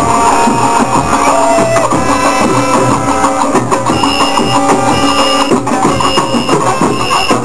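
Marching band drums playing under a repeating melodic line. From about halfway, a short high note sounds roughly once a second.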